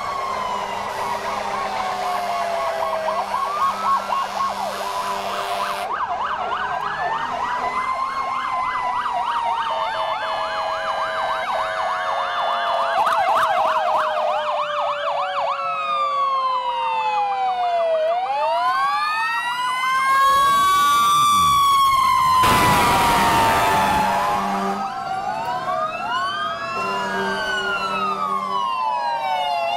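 Several fire-apparatus sirens sounding at once, overlapping wails and fast yelps, with one siren tone falling slowly in pitch over about ten seconds. A loud horn blast comes about two-thirds of the way through.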